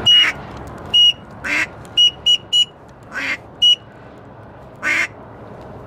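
Ducks quacking: four short raspy quacks spread out, mixed with six brief high-pitched whistles, three of them in quick succession about two seconds in.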